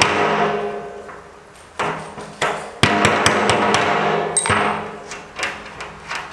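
A steel hammer drives a punch into the sheet-steel lid of a 55-gallon drum: about ten irregular blows, some in quick pairs. After the harder blows the hollow drum rings on.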